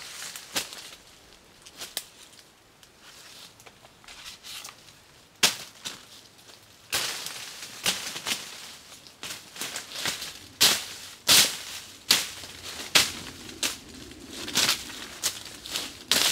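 Footsteps and movement through dry forest undergrowth: leaf litter crunching and twigs snapping in sharp, irregular cracks. The cracks are sparse in the first few seconds and come often from about five seconds in.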